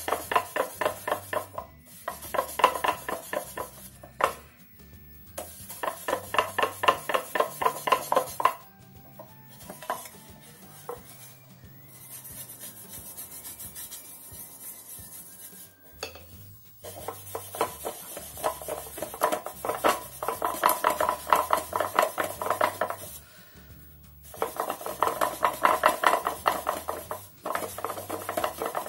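A cloth polishing pad rubbed briskly back and forth over a painted wooden drawer, buffing furniture wax to a satin shine. The scrubbing strokes come several a second in runs of a few seconds, with quieter pauses between, the longest about a third of the way in.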